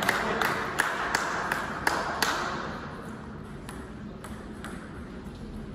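Plastic table tennis ball bouncing: a run of light, sharp clicks about three a second for the first two seconds, then a few fainter clicks.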